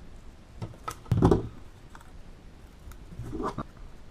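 Handling sounds at a workbench as foam pieces are pressed together and taped: scattered small clicks and rustles, with two brief louder rubbing noises, about a second in and again about three and a half seconds in.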